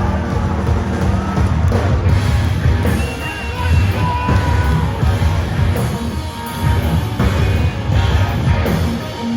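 Live heavy rock band playing, with yelled vocals over dense drums and heavy low bass.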